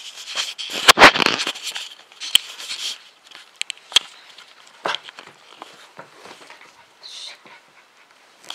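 Husky puppy playing with a tennis ball on carpet: scuffling with scattered sharp clicks and knocks, the loudest about a second in.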